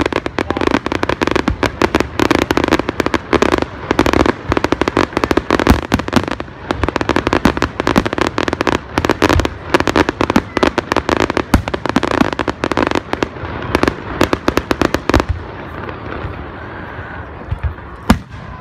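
Aerial firework shells and comets bursting in rapid, overlapping succession, many bangs a second. The barrage thins out about fifteen seconds in, leaving scattered reports and two louder single bangs near the end.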